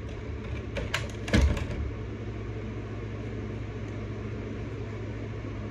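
A few light plastic clicks and one duller knock in the first second and a half as a plastic action figure is handled. Under them runs a steady low room hum.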